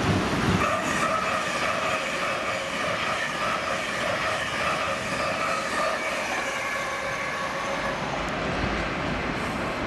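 LNER train running on the line: a steady rumble with high whining tones that fade away about three-quarters of the way through.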